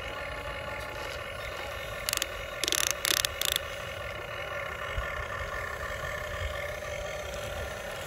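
Electric motors of a Huina remote-control excavator whining steadily as the arm and bucket move, with a few short gritty scrapes about two to three and a half seconds in as the bucket digs into sand.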